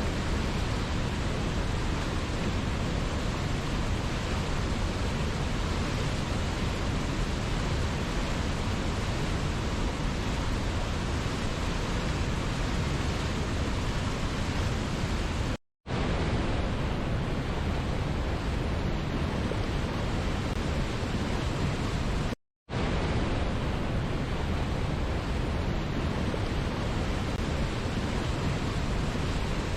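Steady, even rush of a waterfall's falling water, cut off twice by a brief drop to silence, a little past halfway and again about three quarters of the way through.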